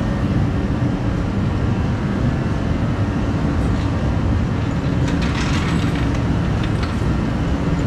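Kerosene shop heater running with a steady, low drone. A few light metallic clinks about five to six seconds in.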